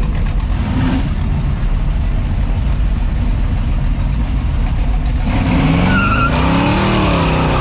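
Red Fox-body Ford Mustang convertible's engine running with a deep rumble as it rolls past. About five seconds in it is revved, the pitch dropping and climbing again.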